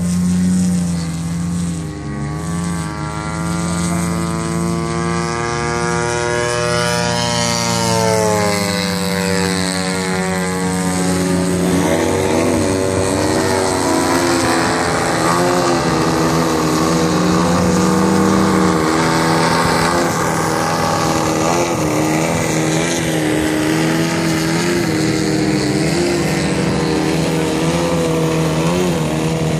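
Engine and propeller of a 168-inch Aero Works Carbon Cub radio-controlled airplane flying overhead. The engine's pitch climbs and then falls away a few seconds in as the plane makes a pass or changes throttle, then runs steadier with small swells.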